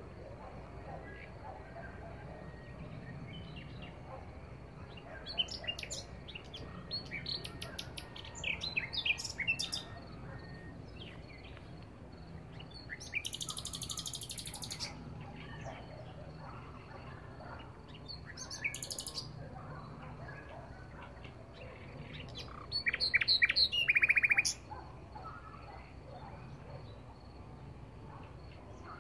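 Nightingale singing in separate phrases of rapid repeated notes and trills with pauses between them; the loudest phrase, a fast run of repeated notes, comes near the end. A faint steady high tone runs underneath.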